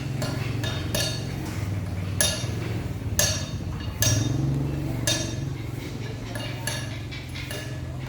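Sharp knocks with a clinking ring, roughly one a second with lighter ticks between them, over a steady low hum.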